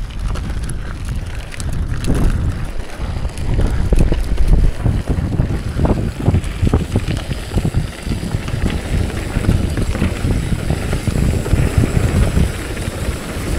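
Mountain bike being ridden over a rough trail, heard through wind noise on the microphone: a steady low rumble with frequent knocks and rattles from the bike.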